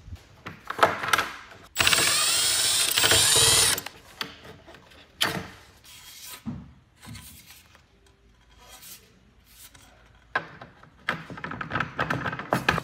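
Aluminium sawhorse rails and legs being handled: scattered knocks and metal clicks as the parts are moved and fitted. About two seconds in there is a loud mechanical rasp lasting about two seconds, and a quicker run of clicking and rattling near the end.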